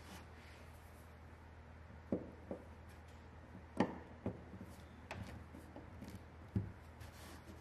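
About half a dozen light clicks and taps of a screwdriver tip against brass slotted screw heads in a wooden deck, spread over several seconds above faint room tone.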